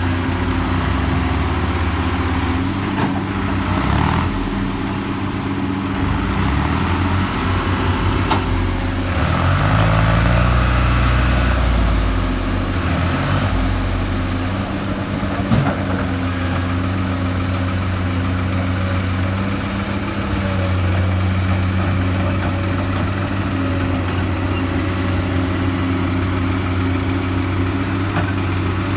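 Diesel engines of heavy machinery running steadily, one of them revving up and back down about nine to thirteen seconds in, with a few sharp knocks.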